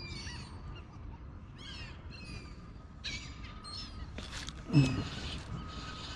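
Birds calling again and again with short, high chirps and squawks. A brief loud low sound falling in pitch cuts in near the end.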